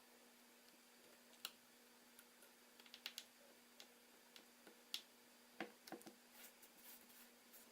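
Faint, scattered small clicks and ticks from a screwdriver and tiny screws being handled against an iPhone 4S's frame during reassembly, with a few sharper clicks about 1.5, 3 and 5 seconds in and a quick run of them near 6 seconds. A low steady hum runs underneath.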